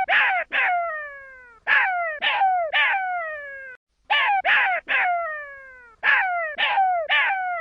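Baby jackal crying: high yelps that start sharply and slide down in pitch, coming in groups of three, with a new group about every two seconds.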